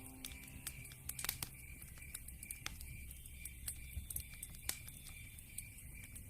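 Wood fire crackling in a fireplace: irregular small pops and snaps, with a couple of sharper pops about a second in and near the end.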